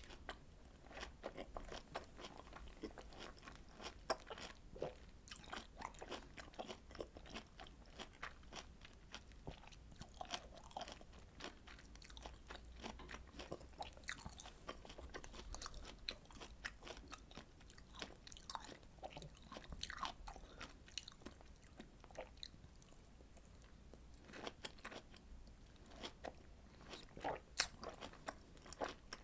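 A person chewing citrus fruit (orange, mandarin or hallabong) close to the microphone: a dense run of small sharp clicks from biting and chewing, thinning briefly about three quarters of the way through.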